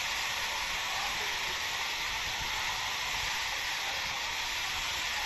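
Steady rush of water falling down the walls of a 9/11 Memorial reflecting pool, an even wash of sound with no breaks.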